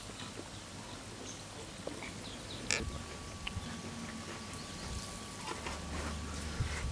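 Bajji fritters deep-frying in hot oil in an iron kadai, a steady sizzle, with the slotted steel skimmer clinking against the pan now and then, most sharply about three seconds in.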